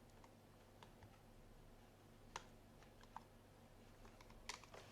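Faint, scattered small clicks and taps from handling the camcorder and power-supply test leads at the DC connector, over a low steady hum.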